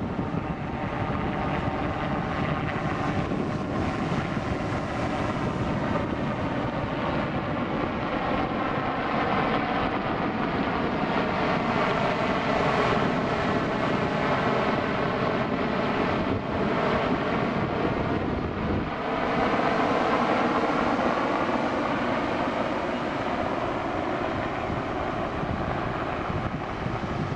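Westland Sea King helicopter in flight, its twin Rolls-Royce Gnome turbine engines and rotors giving a continuous drone. The pitch of its tones drifts slowly up and down, and the sound is a little louder in the middle.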